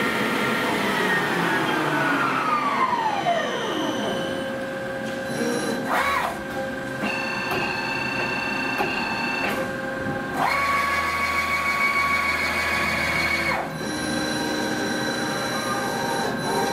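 1987 Mori Seiki TL-5A CNC lathe running a test program, its spindle and axis drives whining. A whine falls steadily in pitch over the first few seconds as the spindle slows. Then come two short rising whines, each settling into a steady whine at a different pitch, and the second cuts off at about 13.5 seconds. For its age the machine doesn't sound bad.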